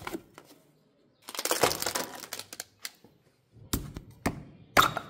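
Takeaway food containers being handled: a burst of crackling from the styrofoam box and plastic tub, then a few sharp knocks as the containers and a glass bottle are set down on a stone ledge, the last knock the loudest.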